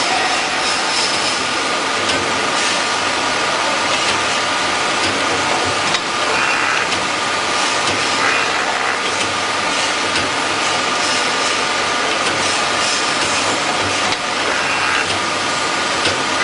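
CNC automatic saw-blade grinding machine running, its grinding wheel working on a saw blade: a steady mechanical hum and grinding hiss, with a few brief louder scraping passes.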